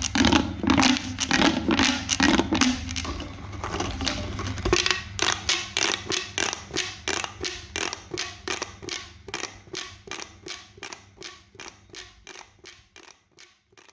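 Handmade pop toy being pressed over and over, giving crisp pops about three times a second that grow steadily fainter toward the end.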